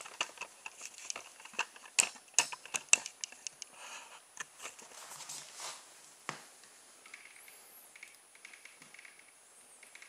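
Hands handling a small home-made model car: irregular sharp clicks and taps of plastic parts, thickest in the first four seconds, then softer scattered handling noise.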